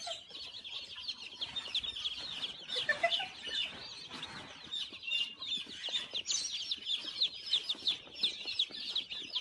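Many small birds chirping continuously, with short high calls overlapping, and a short lower rising call about three seconds in.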